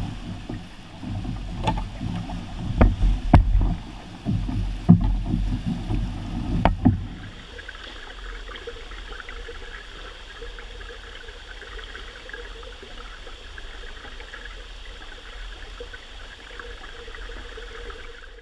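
Rushing whitewater while a canoe is poled upstream, with wind buffeting the microphone and several sharp knocks of the canoe pole in the first seven seconds. About seven seconds in it changes to a quieter, steady hiss of water running over a shallow riffle.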